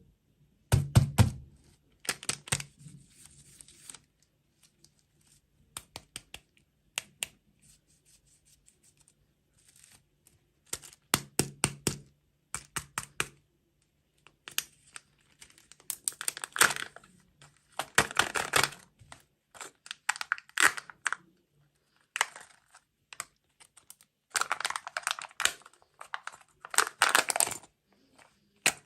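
Close-up eating noises: bursts of wet, crackly clicks from chewing and mouthing food, coming in clusters of under a second to about a second with short pauses between.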